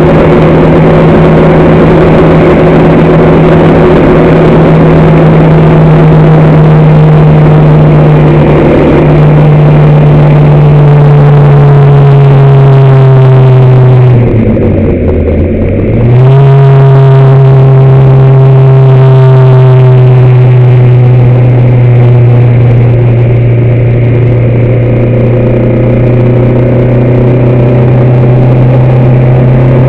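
Race vehicle's engine recorded on board, running loud at high, nearly steady revs with the pitch slowly sagging. About halfway through the revs drop for a moment and pick up again within two seconds, as when lifting off and getting back on the throttle.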